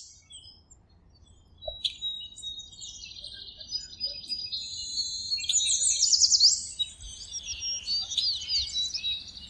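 Birds singing and chirping, starting about two seconds in: high twittering and trills, with a run of quick sweeping whistles around the middle.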